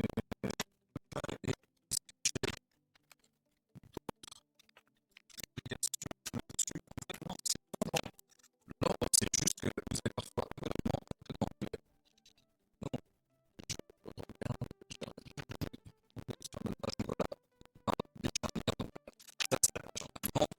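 Bursts of scratching and rapid clicking, each lasting one to three seconds, with short silent gaps between them.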